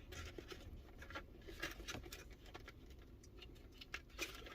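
Faint scattered rustling and light clicks of a boxed action figure being handled and untied from its paper packaging and ties.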